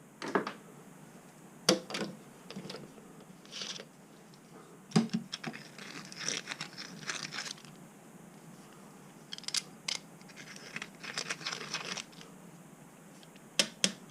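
Scattered clicks, knocks and rustling from small metal parts and tools being handled, with no machine running. The sharpest knocks come about a second in, near two seconds, at five seconds, and twice near the end.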